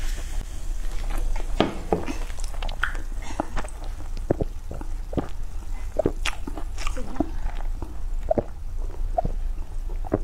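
Close-miked gulping and swallowing of cola from a glass: a series of separate wet gulps and mouth clicks, roughly one every second.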